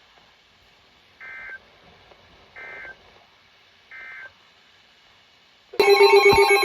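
Emergency Alert System end-of-message data bursts: three short, identical bursts of warbling digital tones about a second and a half apart, marking the end of the alert. Near the end a much louder warbling electronic alert tone cuts in.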